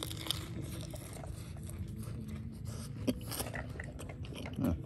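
Close-up chewing of a crunchy mouthful of raw cabbage leaf: irregular crisp crackles and wet mouth clicks.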